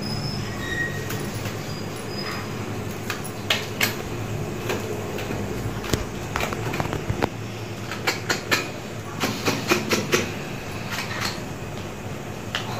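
A knife scraping and clicking against a singed mutton trotter in irregular sharp strokes, over a steady low rumble.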